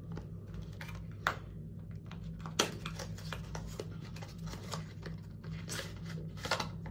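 Small cardboard product box being opened by hand: scattered scrapes, taps and crinkles of the card, with a few sharper snaps as the end flap is worked open.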